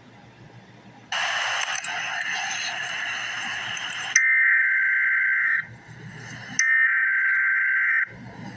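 Emergency Alert System SAME digital header: a harsh hissing burst about a second in lasts about three seconds, then come raspy two-tone data bursts, each about a second and a half long with about a second's gap between, signalling the start of a weather alert.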